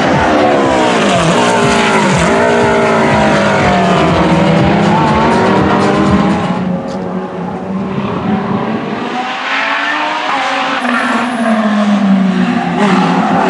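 Lamborghini Gallardo GT3's 5.2-litre V10 racing engine accelerating hard out of a corner, its pitch dropping sharply at gear changes in the first couple of seconds. It fades as the car moves away around the middle, then grows louder again with rising revs near the end.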